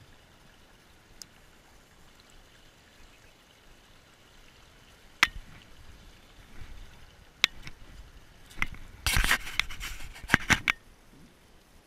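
Faint steady hiss of stream water, then from about five seconds in a string of sharp clicks and knocks from handling the rod, reel and camera, crowded thickly together near the end.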